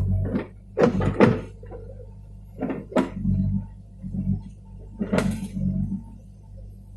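Case 580 backhoe engine running steadily under the digging, with several sharp clanks and knocks from the bucket and boom working, the loudest about a second in and about five seconds in.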